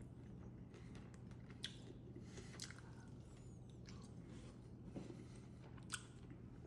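Faint chewing of an air-fried soy garlic chicken wing, with a few small soft clicks and squishes of biting.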